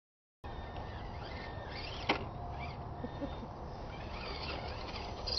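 Silent for the first half second, then outdoor ambience: birds chirping over a steady low rumble, with one sharp click about two seconds in.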